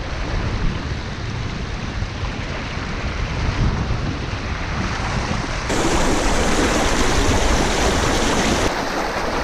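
Fast river water rushing and splashing over rocks around the wader, a steady rushing noise. A little over halfway through it suddenly becomes louder and brighter.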